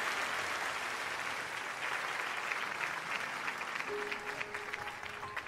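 Large crowd clapping and cheering: a dense wash of applause and screams that thins out near the end, as a few soft, sustained musical notes come in.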